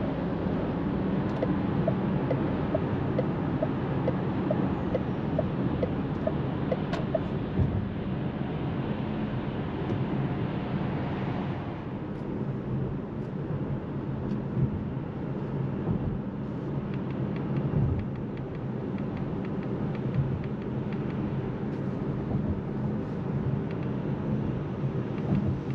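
Steady road and tyre noise inside the cabin of a Seres 3 electric SUV on the move, with a low hum and no engine note. A light regular ticking runs for the first several seconds, and the upper hiss eases about halfway through.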